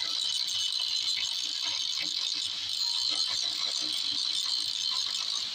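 Handheld angle grinder with an abrasive disc grinding the steel edge of an iron folding door: a steady, high-pitched grinding whine.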